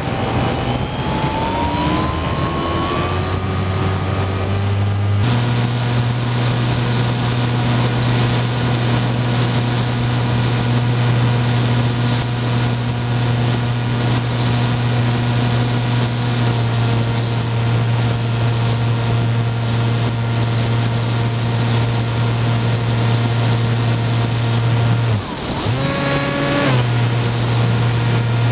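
Electric motor and propeller of a Skywalker FPV model plane, heard from its onboard camera: a steady buzzing drone with a faint high whine above it. The pitch climbs through the first few seconds, settles about five seconds in, and drops briefly near the end before coming back.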